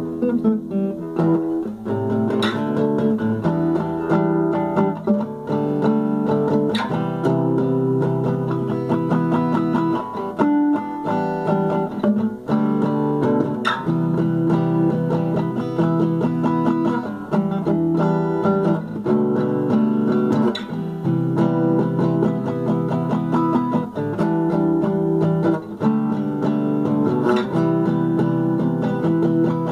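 Acoustic guitar strummed, chords changing every couple of seconds, with a few sharp accented strums.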